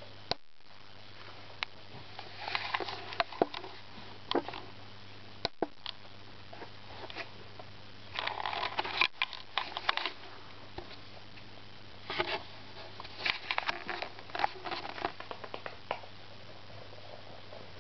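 Bengal cat sniffing and rubbing right up against the camera, in three spells of close, noisy snuffling and brushing, with scattered sharp taps from its paws and the toy on a laminate floor in between.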